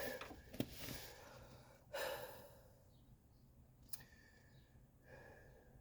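A man's breathing, with a heavy exhale about two seconds in, and two sharp small clicks, one early and one about four seconds in.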